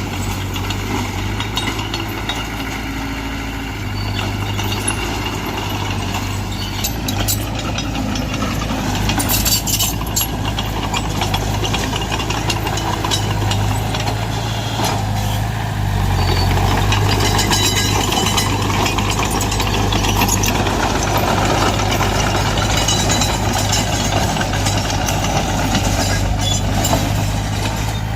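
Diesel engine of heavy earthmoving machinery running steadily, with a few short clanks and a slight rise in level a little past halfway.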